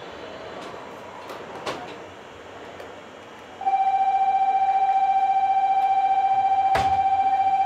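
A loud electronic buzzer with a fast trill starts about three and a half seconds in and holds one steady pitch, over faint train noise. A sharp clunk cuts through it about seven seconds in.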